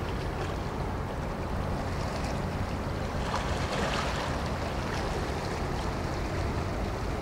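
Lake freighter Kaye E. Barker passing close: a steady low engine drone under the rush of water along its hull and bow wave, the rushing swelling around the middle.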